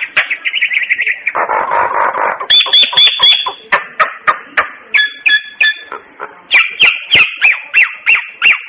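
Common myna singing: a rapid, varied run of clear whistled notes and quick repeated phrases, with a harsher chattering stretch about one and a half seconds in.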